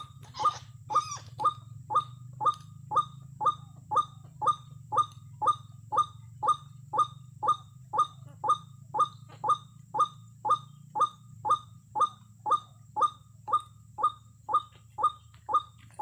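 White-breasted waterhen (ruak-ruak) call, short falling "wak" notes repeated very evenly about twice a second.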